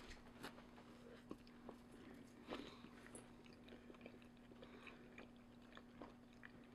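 Faint chewing of a mouthful of beans on toast: scattered soft clicks and small crunches, one a little louder about two and a half seconds in, over a faint steady hum.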